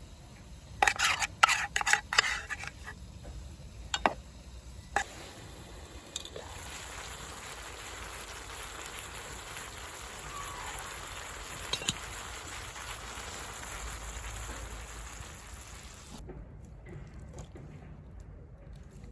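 Cooking utensil clacking sharply against a frying pan several times, then pork and kimchi sizzling steadily in the pan; the sizzling falls away about sixteen seconds in.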